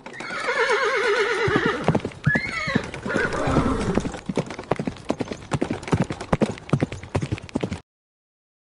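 Horse whinnying in a long wavering neigh, then a shorter one about two seconds in, followed by hooves clip-clopping in a quick, uneven beat that stops suddenly about a second before the end.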